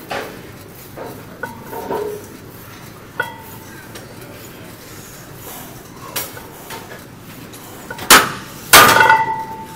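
Plate-loaded leg press machine clanking: a few light metallic clinks, then near the end two loud metal clanks with a ringing tail from the loaded sled and its iron weight plates.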